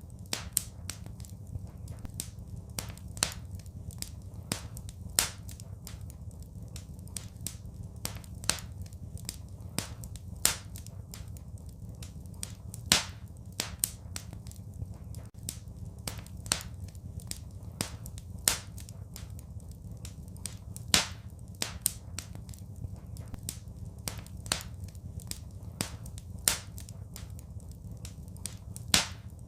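Wood fire crackling in a fireplace: irregular sharp pops and snaps, a dozen or so standing out louder, over a steady low rumble.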